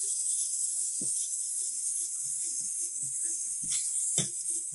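Clockwork motor of a wind-up robot toy whirring with a fast, even ticking as the toy walks, with a few short knocks near the end as it is picked up.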